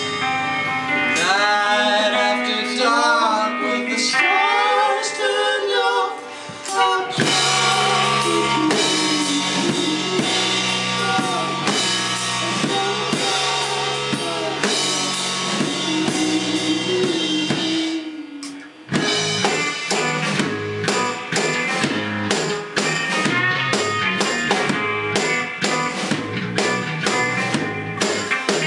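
Live band playing with electric guitars and a drum kit, a sliding melody line over the first few seconds. The music dips briefly twice, the second time about two-thirds of the way through, then comes back with busy, steady drumming.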